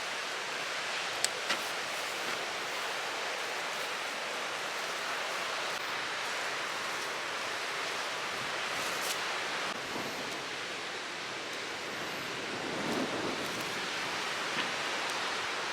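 Steady rushing noise of wind and surf on a beach. Two short sharp clicks come a little over a second in.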